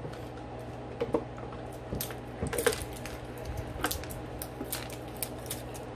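Scattered small clicks and rustles of fingers picking at and peeling the plastic wrapper off a Mini Brands capsule ball, over a steady low hum.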